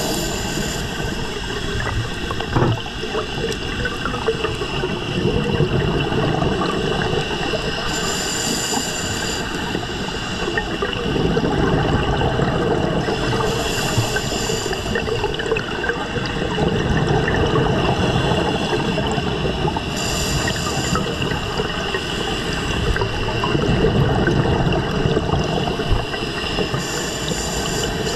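Scuba diver breathing through a regulator underwater: a hissing inhale about every six seconds, each followed by a low rumble of exhaled bubbles.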